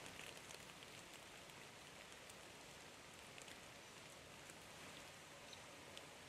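Near silence: a faint steady outdoor hiss with scattered small ticks.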